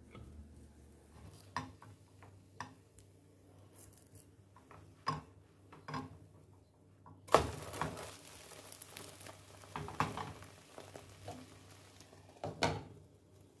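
Glass pan lid and spatula clinking and knocking against a nonstick frying pan. There is a loud clatter about seven seconds in as the oat-and-egg pancake is turned, followed by a few seconds of sizzling. Near the end the glass lid knocks back down onto the pan.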